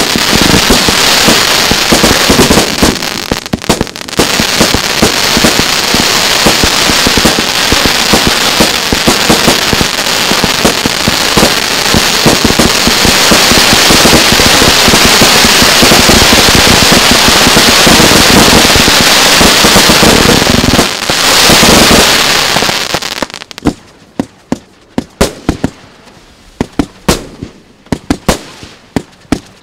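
Fireworks display firing a rapid barrage: a dense, continuous run of launches, cracks and bangs. About three quarters of the way through, the barrage stops and only separate pops and bangs follow.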